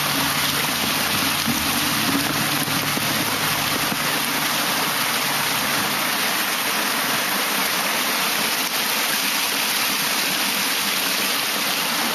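Torrential downpour: heavy rain falling in a loud, steady hiss. A low hum underneath fades out about four seconds in.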